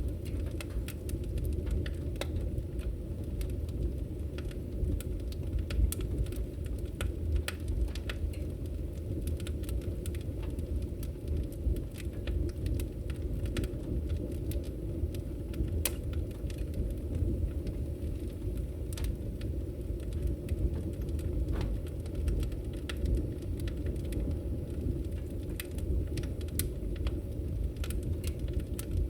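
Wood fire burning in a fireplace: a steady low roar with frequent, irregular sharp crackles and pops.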